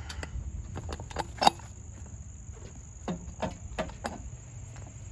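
Scattered clicks and knocks as the metal bracket of a Harley-Davidson rider backrest is handled and slid into its slot in the seat; the loudest knock comes about a second and a half in. A steady high-pitched tone sounds throughout in the background.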